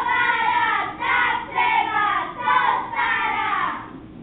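Children singing together in a run of short, high phrases, the last one falling away shortly before the end.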